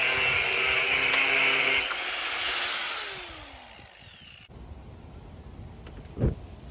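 A power tool running at full speed, then switched off and spinning down, its pitch falling as it slows. After an abrupt cut a quieter low rumble follows, with a short low thump near the end.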